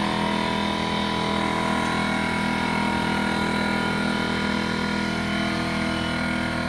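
Air compressor running steadily, its pump building tank pressure toward about 90 PSI.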